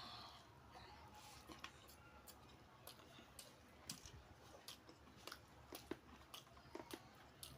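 A person chewing a mouthful of beef biryani close to the microphone: faint, irregular mouth clicks, about one or two a second.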